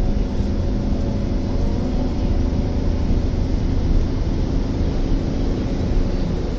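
A car driving at steady speed, heard from inside the cabin: a constant low rumble of engine and road noise.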